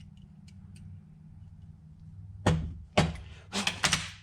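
A low steady hum, then four sharp knocks and clacks of hard objects in quick succession over about a second and a half, starting a little past halfway.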